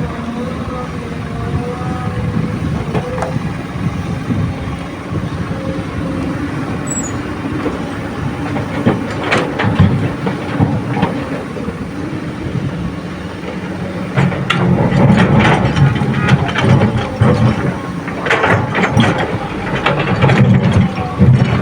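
Komatsu PC200 hydraulic excavator's diesel engine running steadily under load while it loads rocky soil. Rock and steel clatter against each other around nine seconds in, and again in dense bursts through the last seven seconds.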